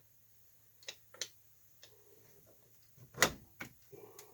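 A handful of sharp metal clicks and knocks, the loudest a little over three seconds in, as the differential's cross pin is worked by hand and bumps against the ring gear, which blocks it from coming out.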